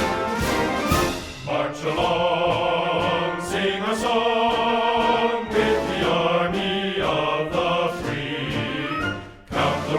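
Background music with a choir singing over an orchestral backing, dipping briefly near the end.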